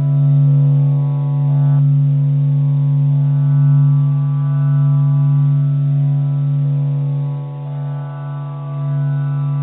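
Continuous low humming drone with many overtones, swelling and sinking slowly, played as a meditation track presented as the sound of the Sun. Some of its upper overtones drop away about two seconds in.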